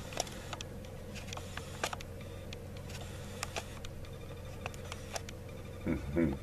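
Quiet indoor room tone with a steady low hum and scattered faint clicks, then a short burst of a person's voice near the end.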